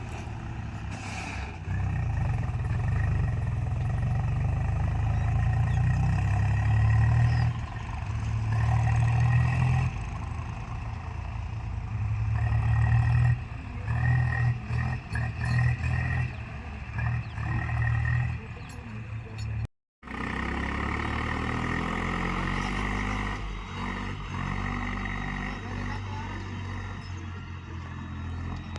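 Heavy diesel machinery engine working, its revs and loudness rising and falling over and over as the load changes, with a few short knocks partway through. The sound cuts out completely for a moment about two-thirds of the way in.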